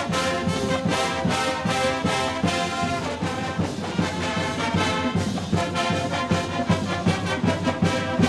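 Upbeat instrumental theme music led by brass, over a steady, driving beat.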